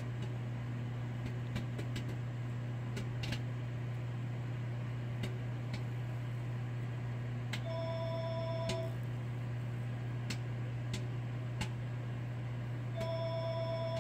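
Microwave oven running with a steady hum while popcorn kernels pop sparsely inside, single pops roughly a second or more apart. Two long electronic beeps sound, one about eight seconds in and another near the end.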